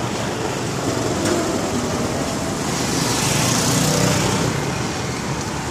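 Street traffic: vehicle engines running steadily, with one vehicle growing louder as it passes about three to four seconds in.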